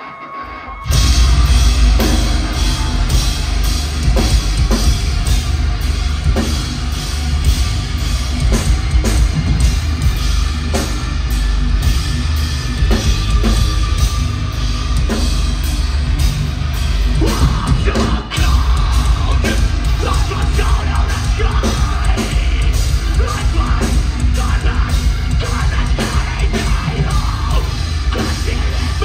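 Metalcore band playing live at full volume: heavy drums and distorted guitars crash in about a second in over a quieter crowd. The music drops out for a split second about eighteen seconds in, then comes back.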